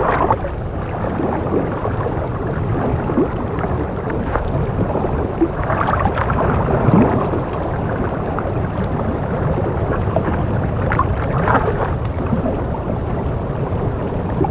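Steady low rumbling, water-like noise, as in a documentary's underwater ambience, with a few brief swishes.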